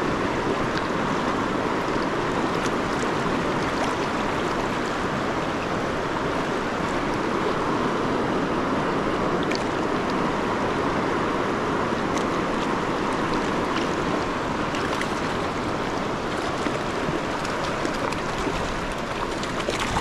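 Steady rush of a high, fast-flowing river running over rocks.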